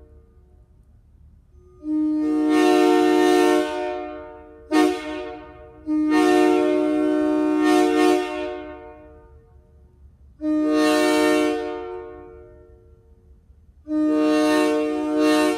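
Locomotive air horn blowing a chord of several notes in repeated blasts: a long blast, a brief toot, another long blast, then two more. Each blast starts abruptly and dies away slowly.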